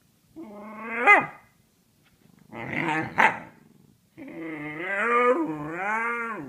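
Husky puppy 'talking': three howl-like calls. The first rises in pitch, the second is shorter and rougher, and the last is long and wavers up and down.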